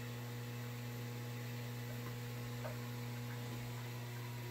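Steady low electrical hum with faint higher tones above it, the constant background drone of running aquarium equipment in a shrimp tank room.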